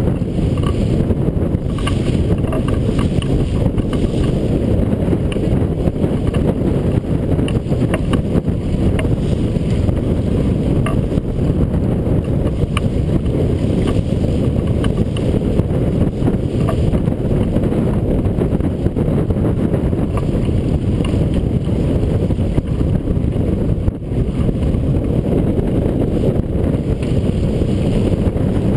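Strong wind buffeting the microphone of a camera aboard a sailboat sailing hard, a steady, heavy rumble with no break, and water washing along the hull beneath it.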